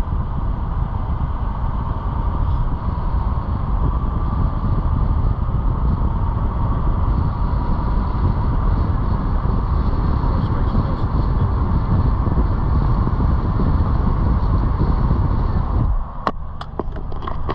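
A vehicle driving: steady engine and road noise. About a second and a half before the end the noise drops and a quick run of clicks or ticks follows.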